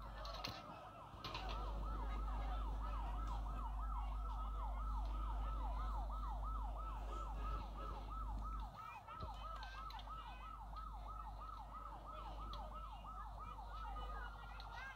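Fire truck siren in yelp mode, a rapid up-and-down whoop repeating about three times a second, switching to a faster pattern near the end, over a steady low rumble.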